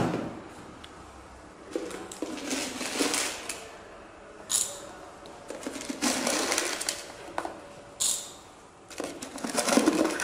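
Caustic soda (sodium hydroxide) pellets shaken from a plastic jar into a glass beaker, rattling and clinking against the glass in several short pours as they are weighed out.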